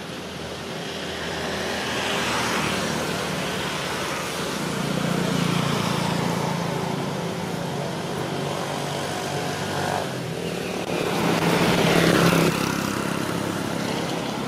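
Motor vehicles passing on a road: engine and tyre noise swells and fades several times, with the loudest pass about twelve seconds in.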